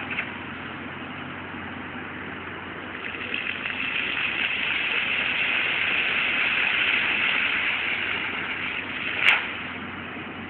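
Water jets of an illuminated fountain spraying and splashing back into the basin, a steady rush that swells in the middle as the jets shoot up and eases as they drop. A single sharp click comes near the end.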